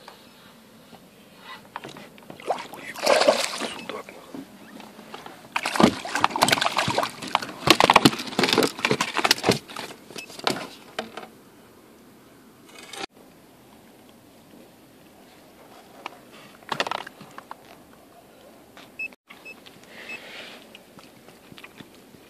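Splashing and knocking as a hooked zander is brought out of the water and lands in an inflatable boat, in two loud, irregular stretches, the longer lasting several seconds; a shorter burst comes later.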